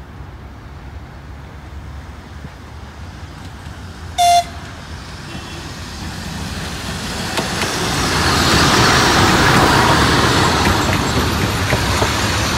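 A train's horn gives one short, loud toot. Then the train draws near and passes, its rumble of wheels on rails swelling up with quick clicks from the rail joints.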